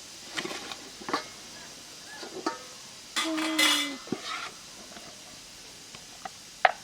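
Metal utensils clinking and scraping against a cooking pan: a few sharp clicks, one longer scrape with a ringing tone about three seconds in, and a sharp clink near the end.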